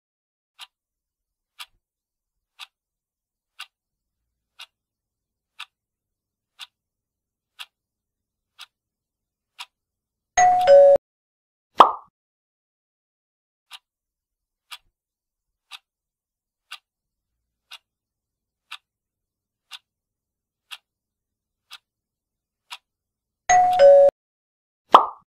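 Quiz countdown-timer sound effect: a clock ticking once a second. Near the end of each ten-second count comes a loud two-note chime, falling from the higher note to the lower, followed about a second later by a short loud sound effect. The whole cycle happens twice, with the second chime and effect near the end.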